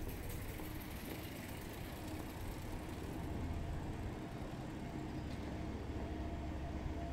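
Steady low rumble and hum of a vehicle engine idling, over a street background.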